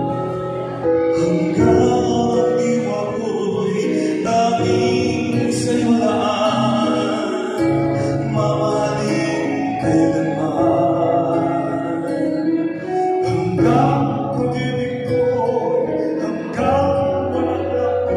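A man singing into a handheld microphone over instrumental accompaniment, amplified through a PA system.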